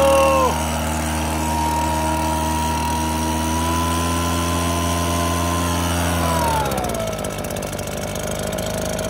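Small petrol engine of a backpack blower running fast and steady just after starting, then slowing to a lower idle about six and a half seconds in.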